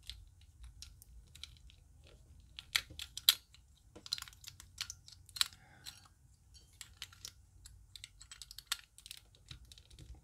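Plastic Rubik's Cube pieces being twisted and clicked into place on the cube's core: a run of irregular small clicks and rattles, the loudest about three seconds in.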